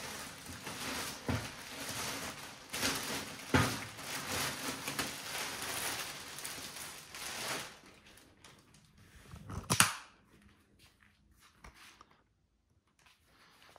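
A PC case and its packaging being handled: rustling for about eight seconds, with sharp knocks about a second in and after three and a half seconds, and a louder sharp knock near ten seconds.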